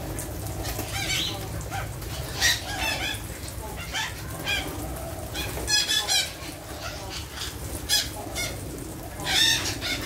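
A large flock of parakeets calling at once: a continuous chatter of shrill, repeated screeches, with louder bursts of calls several times, and wings flapping as birds take off.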